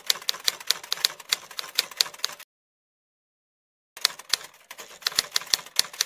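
Typewriter keystroke sound effect: quick key clicks at about five a second, breaking off for about a second and a half in the middle, then starting again.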